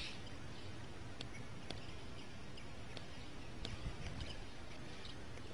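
Faint outdoor background: a steady low wind rumble on the microphone, with a few faint short chirps or ticks scattered through it.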